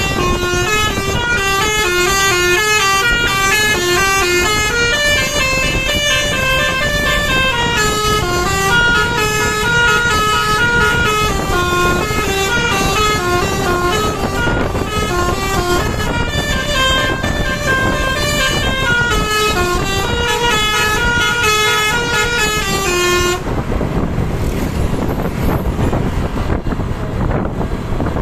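Bus basuri (telolet) multi-tone horn playing a melody of stepped notes, rising and falling, which stops about 23 seconds in. After it stops, the engine and road noise remain.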